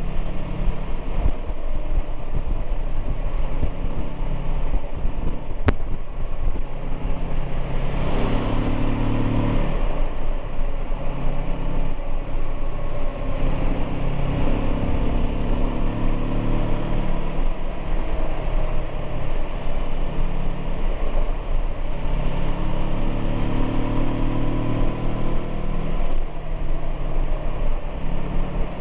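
Kawasaki Versys 650 parallel-twin engine and exhaust under way, the engine note rising and falling in steps with the throttle over a steady low rumble. A single sharp click comes about six seconds in.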